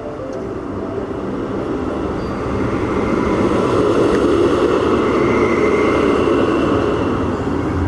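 Steel roller coaster train running along its track on an empty test run, a steady rumble that grows louder over the first few seconds.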